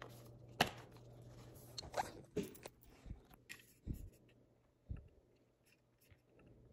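Handling noises while unpacking a laptop: a few sharp crinkles and clicks of packaging in the first half, then several soft low thumps about a second apart and a louder one at the end.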